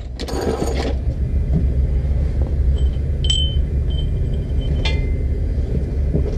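A wheel rim being moved into place over a steady low rumble: a brief scrape in the first second, a short ringing metallic clink about three seconds in, and a sharper click near five seconds.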